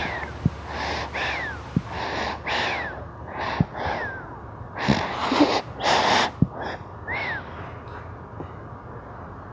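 Three-month-old baby snoring: quick, noisy breaths less than a second apart, several with a short falling squeaky whistle, stopping about seven and a half seconds in.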